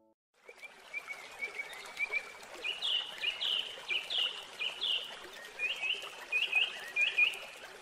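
Birdsong: quick runs of short, rising chirps repeated over and over, starting about half a second in, over a steady background hiss.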